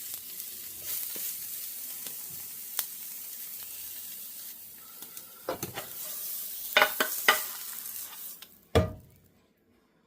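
Egg mixture sizzling in a frying pan with a steady hiss, broken by several sharp clinks of a utensil against the pan past the middle and a heavier knock near the end. The sizzle then fades out.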